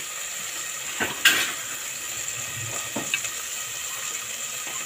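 Tomatoes, onions and chilies sizzling steadily as they sauté in oil in an aluminium pot, with a few scrapes of the stirring utensil against the pot, the loudest about a second in.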